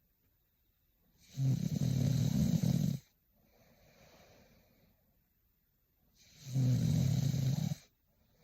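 A young woman snoring in her sleep: two loud snores about five seconds apart, each lasting about a second and a half, with a soft breath out between them.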